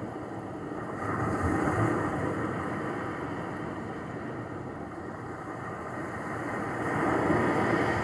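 Small waves washing onto a shore: a steady rush of surf that swells about a second in and again near the end.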